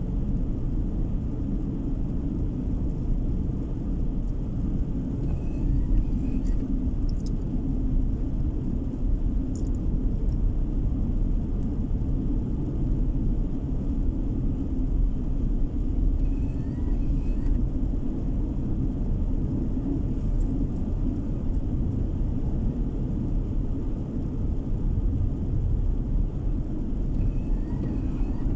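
Steady low rumble of a car driving, engine and tyre noise heard from inside the cabin, with a few faint high clicks.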